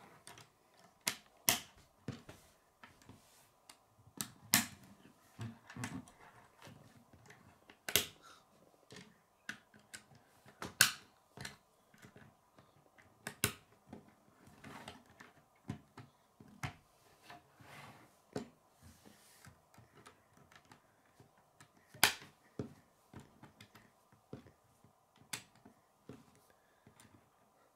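Plastic K'nex rods and connectors clicking as they are snapped together and set down on a wooden table: irregular sharp clicks and taps, a few much louder than the rest.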